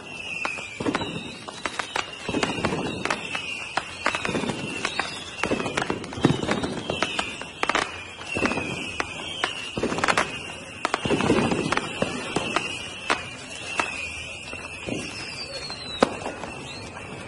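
Fireworks going off: a dense string of sharp bangs and crackles with some deeper booms, and many short falling whistles.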